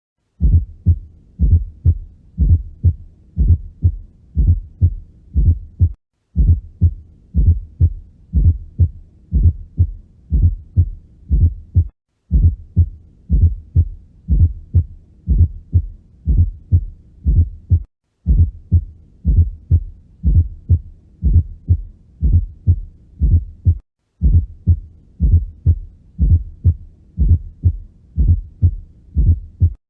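Recorded heartbeat heard through a stethoscope, with a fourth heart sound (S4 gallop): an extra low thud just before each first heart sound. Atrial contraction is filling a stiff ventricle. The short recording repeats about every six seconds, with a brief break between repeats.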